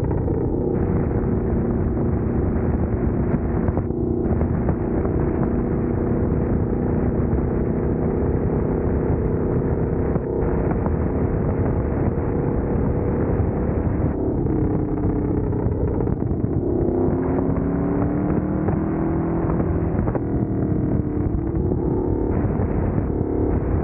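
Engine of a small ridden vehicle running steadily at road speed, with rumble from air rushing past the camera. Its pitch slides and shifts about 15 to 20 seconds in as the speed changes.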